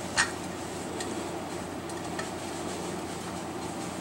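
Hydraulic motorcycle jack being worked up to the frame: one sharp click just after the start, then a few faint light ticks over a steady low hum.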